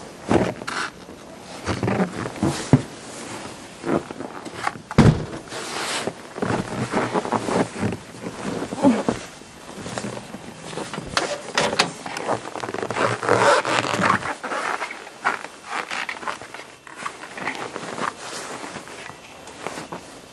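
Irregular crunching and scraping in deep snow, mixed with the rustle of winter clothing, and one sharp knock about five seconds in.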